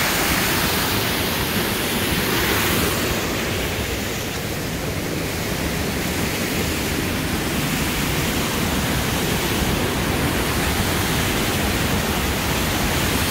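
A waterfall pouring over rock ledges into a gorge: a steady, loud rush of water, dipping slightly about four seconds in before rising again.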